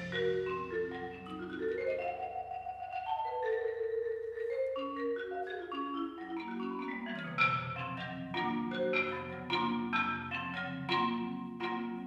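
Marimba played with mallets: a flowing run of struck notes that ring into one another. About halfway through, low held notes come in underneath and the strokes grow sharper and more frequent.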